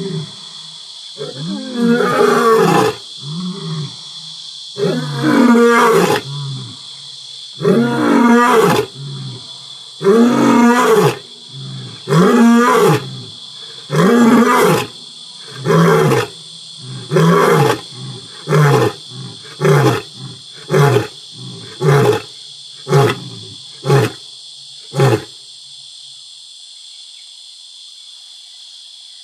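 Male African lion giving a territorial roaring bout: about six long, deep roars, then a string of shorter grunting roars that come faster and shrink until they stop about 25 seconds in. A steady high-pitched insect chorus runs underneath.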